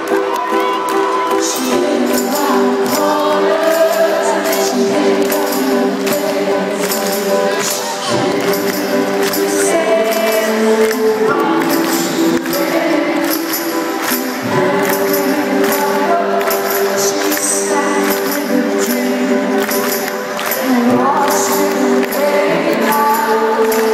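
Live band performance heard from within the audience: a woman singing lead over harp and drums, with a steady jingling, tambourine-like percussion beat.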